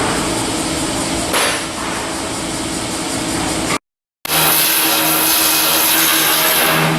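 Steady machinery noise with a low engine-like hum and a broad hiss. It drops out for a moment about four seconds in, then returns a little louder with more hiss.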